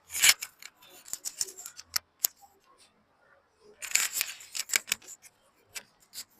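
Handling noise: quick clicks and rustling in two bursts, one at the start and one about four seconds in.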